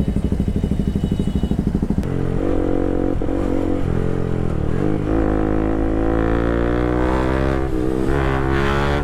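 Bajaj Pulsar RS200's single-cylinder engine through an Akrapovic full titanium exhaust, idling with an even rapid pulse. About two seconds in it pulls away and accelerates, its pitch climbing with short dips at the gear changes.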